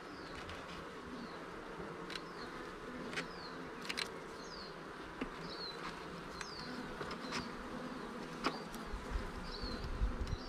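Honeybee colony humming steadily from an open hive, with sharp clicks and scrapes of a metal hive tool prising the wooden frames apart. Short high falling chirps sound now and then over it, and there are a few low thuds near the end.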